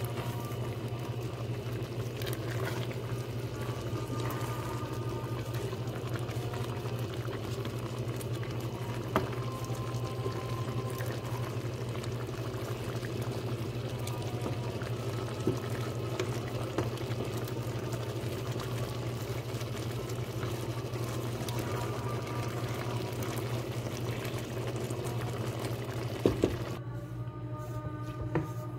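Stew of chicken, potatoes and lentils simmering and bubbling in a steel pot over a low steady hum, with a few sharp knocks of a wooden spatula against the pot. The bubbling stops abruptly near the end.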